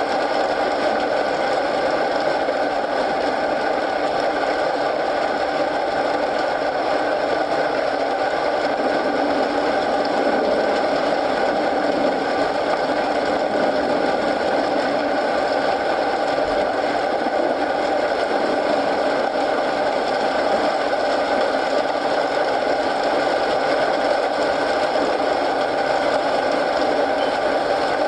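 Steady rain mixed with a crackling wood fire, an even, unbroken hiss.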